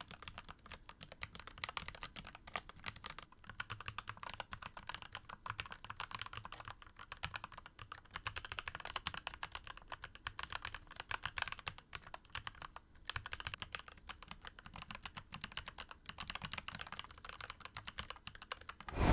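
Steady, fast typing on a mechanical keyboard fitted with medium-height profile keycaps: quick keystroke clicks with a balanced, short-decaying tone. The typing pauses briefly about thirteen seconds in.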